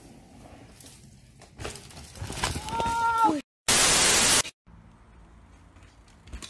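A loud burst of static-like hiss, under a second long, about three and a half seconds in, from the logo transition. Before it, outdoor noise with a brief wavering shout, and after it a faint low hum.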